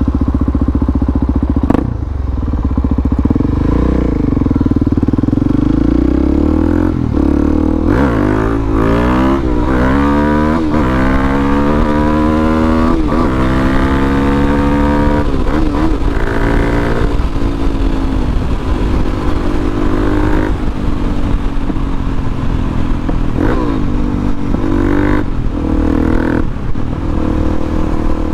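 Harley-Davidson Dyna V-twin motorcycle engine accelerating through several gears, its pitch rising and then dropping at each shift, before settling into a steady cruise.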